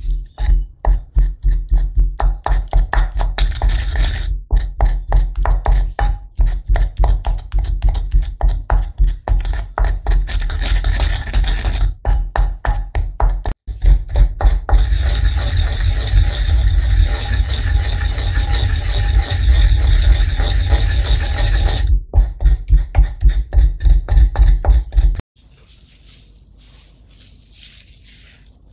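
Wooden surikogi pestle grinding sliced garlic in a ridged ceramic suribachi, a loud, rhythmic rubbing and knocking of repeated strokes against the bowl that stops a few seconds before the end.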